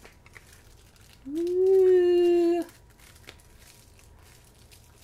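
A woman's voice holds one steady note for about a second and a half, starting about a second in, with faint paper rustling from gift wrapping before and after it.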